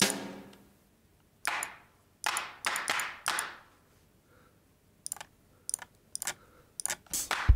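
Single drum-sample hits from a Reason Drum Kits brush kit played one at a time: a pitched drum hit that dies away over about a second, then five short, noisy hits. A few soft mouse clicks follow near the end.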